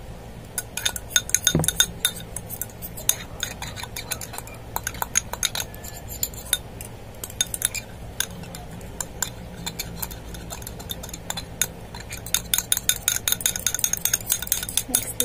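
A metal utensil stirring a thick coffee and egg-yolk mixture in a small glass jar, with rapid clinks and scrapes against the glass. The clinking comes thickest in a flurry about a second in and again over the last few seconds.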